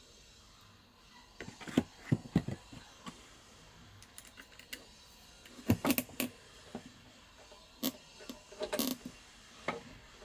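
Scattered clicks, knocks and light clatter of tools and hardware being handled, in clusters about two, six and nine seconds in.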